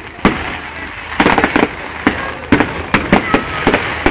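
Aerial fireworks bursting: a rapid, uneven series of sharp bangs, one early, then clusters of bangs in quick succession from about a second in, over a steady rumble.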